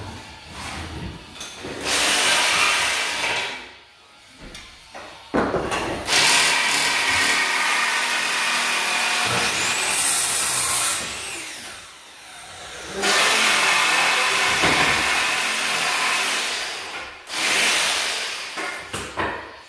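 Hand-held cordless power tool run in four bursts of a few seconds each, the longest about six seconds, working on hardwood flooring.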